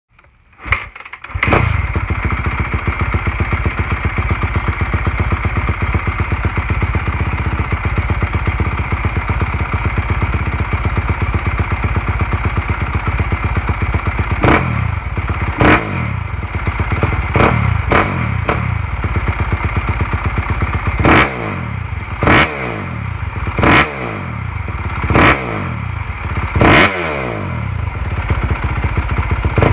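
Stock Yamaha YZ250F 250cc single-cylinder four-stroke motocross engine starting about a second in and idling steadily. From about halfway it is revved in around ten sharp throttle blips, each dropping back to idle.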